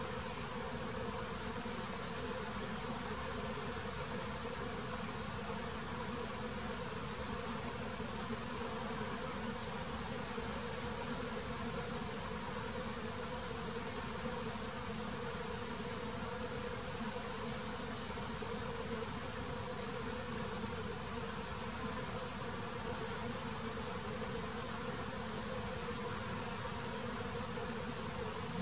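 Honeybees buzzing in a steady, dense hum around the hive, with a high-pitched insect call pulsing about one and a half times a second above it.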